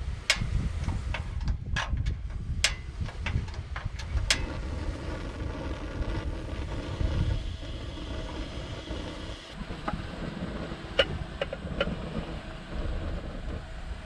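Wind rumbling on the microphone, with a string of sharp clicks and knocks in the first few seconds and a few lighter clinks near the end.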